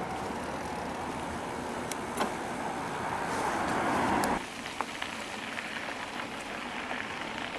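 Road traffic noise: a motor vehicle swells louder, then cuts off suddenly about four and a half seconds in, leaving a quieter steady rushing hiss.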